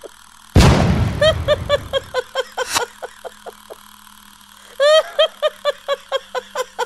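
Edited-in end-screen sound effects: a short noisy whoosh about half a second in, then two runs of quick, high-pitched repeated blips, about six a second.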